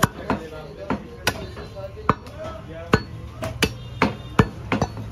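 Heavy butcher's blade chopping beef on a wooden chopping block: a string of sharp, irregularly spaced chops, around ten in all.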